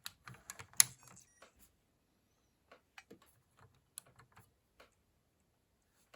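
Scattered light clicks and taps at an uneven pace, the sharpest just under a second in, then sparser faint clicks.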